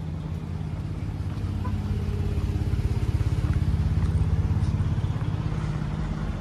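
A motor vehicle's engine running with a low, steady throb that grows louder toward the middle and then eases off.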